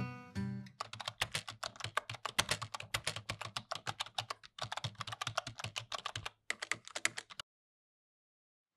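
Typing sound effect: rapid, irregular key clicks that stop abruptly near the end. Acoustic guitar music fades out in the first second, just before the clicks begin.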